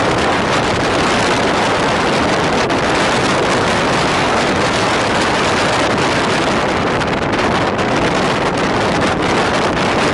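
Steady loud rush of a passenger train running at speed, heard from aboard, with wind buffeting the microphone.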